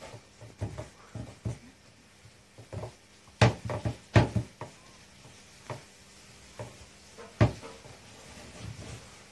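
Long wooden rolling pin rolling out a sheet of dough on a board, with scattered knocks and thumps as the pin bumps the board and the dough is turned; a few louder knocks come around the middle and one later on.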